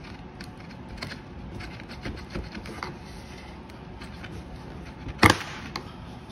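Old wooden baseboard being pried off the wall with a flathead screwdriver: faint creaks and small clicks, then one sharp crack about five seconds in that sounds like the board breaking, though it holds.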